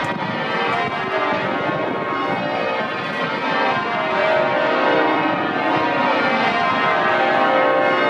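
Church bells of St Paul's Cathedral ringing changes: a continuous, dense peal of many overlapping bell tones.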